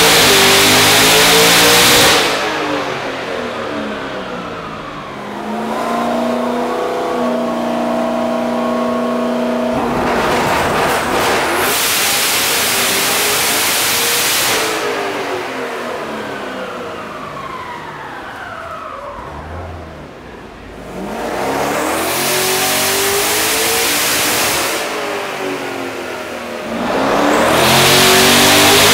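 Twin-turbo C7 Corvette V8 running on a hub dyno through repeated tuning pulls. The engine revs hard and loud, winds down in a long falling sweep, holds a steady speed for a few seconds, then climbs into another full-throttle pull. There are several such rises and falls, and the loudest runs come at the start and near the end.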